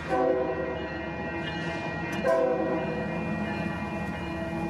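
Union Pacific diesel locomotive sounding its air horn in two short blasts, one at the start and one about two seconds later, over the steady running of the train.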